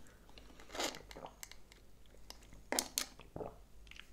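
Quiet mouth sounds from a person sipping a frappuccino through a straw and chewing: a short slurp about a second in, then a few small clicks and smacks near the end.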